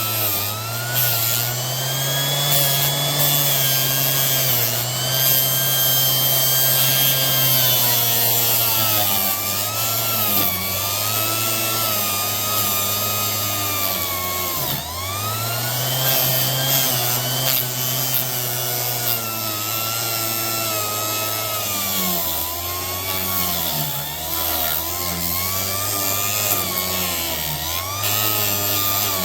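Orbital sander running with its disc pressed against the metal blade of a painter's 5-in-1 tool, sanding off rust and old epoxy. The motor pitch wavers and dips again and again as it is pushed into the work, sagging most deeply about halfway through.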